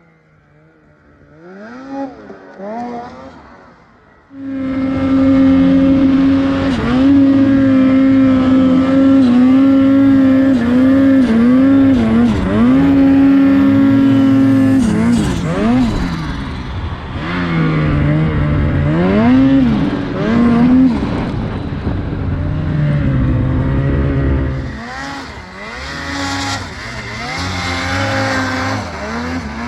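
Ski-Doo Turbo R snowmobile's turbocharged two-stroke twin, revving lightly at first, then opening up loudly about four seconds in. It runs at high revs, its pitch rising and falling as the throttle changes.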